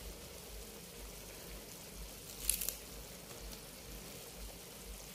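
Noodle soup broth simmering in a grill pan over a gas stove: a faint, steady bubbling hiss, with one brief crackle about two and a half seconds in.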